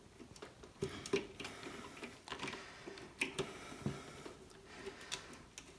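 Faint, irregular clicks and light knocks of ribbon data cables and their plastic plug connectors being handled and pushed onto the headers of an add-on control board inside an open Antminer S19 Pro bitcoin miner.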